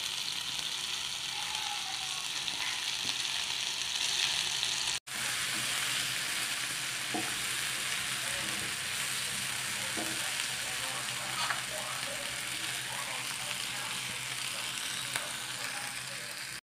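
Tuyo (dried salted fish) frying with tomatoes, onions and green chilies in a pan: a steady sizzling hiss that breaks off for a moment about five seconds in. A wooden spatula makes a few light scrapes and taps against the pan in the middle.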